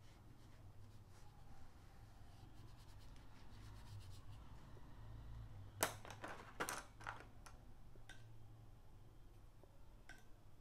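Faint scratching of a fine paintbrush working paint onto paper, over a low steady hum, with a few light clicks a little past halfway.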